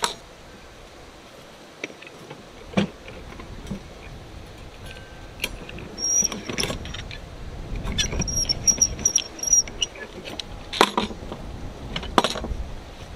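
Steel rebar and wire ties clinking and knocking against each other and the wooden form as a rebar grid is laid out, with a few sharp clanks and a short run of high squeaks around the middle.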